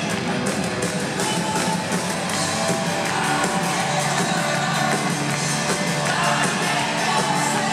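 A live rock band playing through a concert PA, with drums, guitar and a male lead singer, heard from among the crowd.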